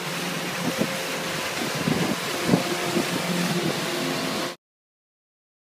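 A boat's engine running steadily under a hiss of wind and water noise. It cuts off abruptly about four and a half seconds in.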